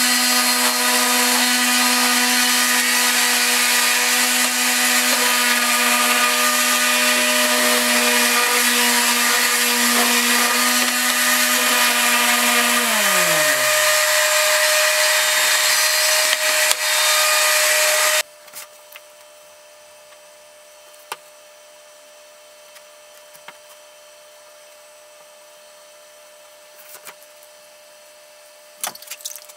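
Skil cordless sander running on plywood with a steady motor whine and a hiss. About 13 seconds in it is switched off and the whine falls away as the motor winds down. After a sudden drop in the noise near 18 seconds, only a faint hum and a few light wooden knocks remain.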